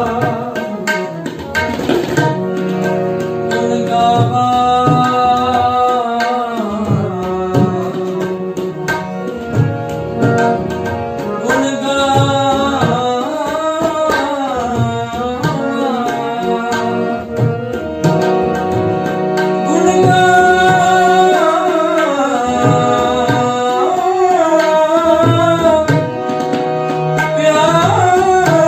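Gurbani shabad kirtan: a raagi singing in long, sliding melodic phrases over sustained harmonium tones, with tabla keeping a steady rhythm throughout.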